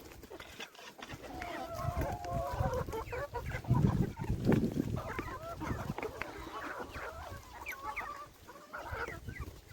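Flock of domestic hens clucking and calling as they feed, many short wavering calls overlapping. Low dull thumps come through in the middle.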